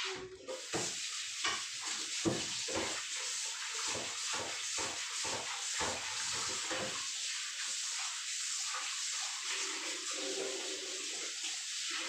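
Kitchen tap running steadily into a sink as a wok is rinsed, the pan knocking against the sink again and again for the first several seconds. The water cuts off at the very end.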